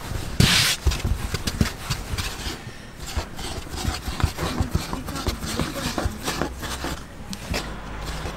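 Irregular clatter of knocks and taps, with a short hiss about half a second in.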